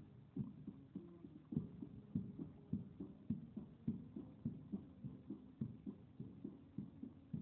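A bass drum beating steady march time, a little under two beats a second, with faint held band notes underneath.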